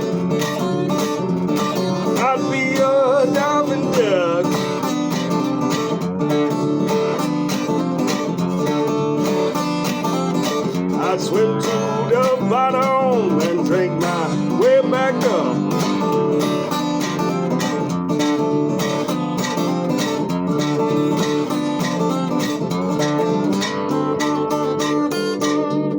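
Country-bluegrass style music played on plucked acoustic guitar, with steady picking throughout. Lead lines glide and bend about three seconds in and again from about eleven to fifteen seconds in.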